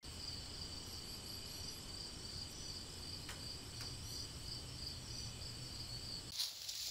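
Insects chirping in a steady, evenly pulsing high trill over a low background rumble. It stops abruptly a little past six seconds in, giving way to a rustle.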